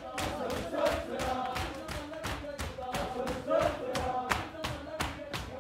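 A crowd of mourners doing matam, striking their bare chests with open hands in a fast, even rhythm, while men's voices chant a lament together over the slaps.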